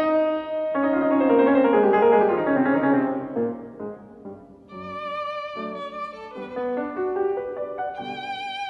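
Background classical music for piano and violin. Piano notes and chords come first, then a violin melody with vibrato comes in about halfway, over the piano.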